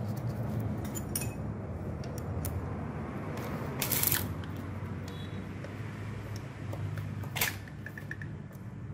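Scattered metallic clicks and clatter as a servo motor and its screws are handled and fitted on an aluminium CNC frame, the loudest clatter about four seconds in and another near the end, over a steady low hum.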